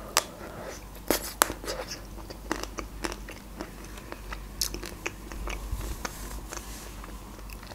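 A bite into a Magnum ice cream bar's chocolate coating with nut pieces, the shell cracking in a few sharp crunches in the first second and a half, then scattered smaller crunches and chewing.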